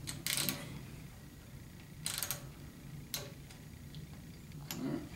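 Ratchet wrench clicking in about four short bursts spread over a few seconds, turning a rocker arm nut on a Chevy 350 small-block to set the valve lash.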